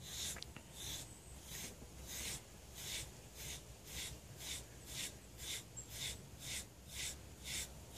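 SleekEZ deshedding blade drawn through a dog's coat in quick, regular strokes, about two or three a second, each a short scratchy swish, pulling out shedding hair.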